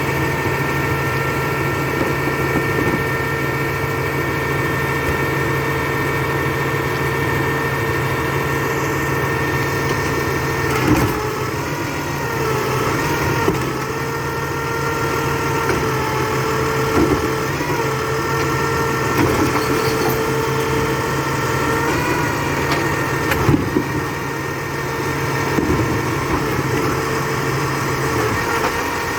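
Labrie Expert 2000 recycling truck's engine idling steadily, with a steady whine over it that shifts pitch a little partway through, and a couple of brief knocks.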